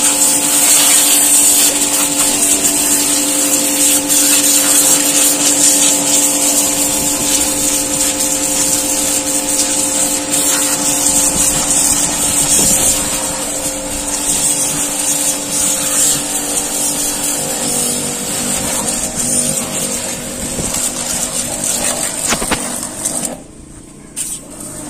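Electric pressure washer running: its pump motor hums steadily under the hiss of the high-pressure water jet spraying a motorcycle. It cuts off abruptly near the end.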